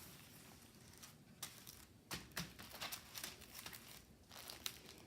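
Faint crinkling and rustling of a diamond painting kit's packaging being handled, in a few scattered short crackles that come more often after the first second or so.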